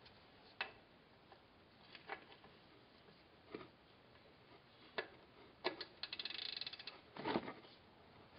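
Faint metal clicks and taps as a drain plug is threaded by hand into a rear differential, then a quick run of ratchet-wrench clicks about six seconds in and a knock just after.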